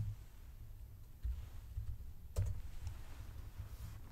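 A few computer keyboard keystrokes over a low steady hum, with one sharper click about two and a half seconds in, as a number is typed into a measurement field.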